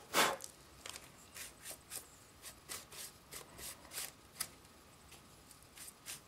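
Short scratchy brush strokes, about two a second, as a paintbrush works dry weathering powder over a plastic HO-scale covered hopper model; a louder rustle comes at the very start and the strokes thin out after about four seconds.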